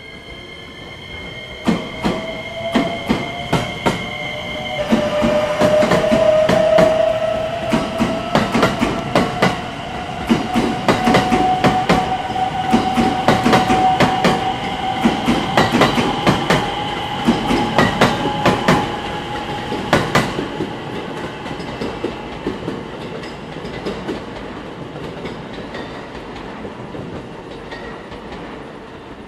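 Electric local train pulling out of the station, its motors whining in a slowly rising tone as it picks up speed, over a rapid run of wheel clicks on rail joints and points. The clicking stops about two-thirds of the way through and the sound fades away.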